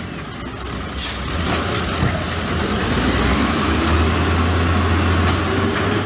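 Automated side-loader garbage truck's diesel engine running, growing louder as the truck pulls up, with a brief hiss about a second in.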